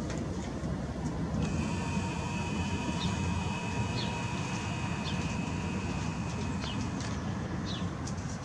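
Steady low rumble of background noise with a short, falling bird chirp about once a second. From about a second and a half in until near the end, a thin steady whine runs underneath: the Nikon Coolpix B700's zoom motor as the lens zooms out.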